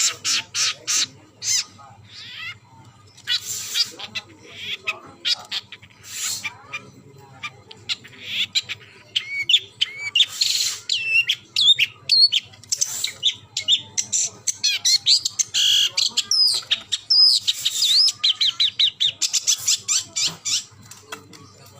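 Long-tailed shrike singing in full song: a rapid, varied stream of chirps, whistled glides and harsh rasping notes, with fast trilled runs near the end.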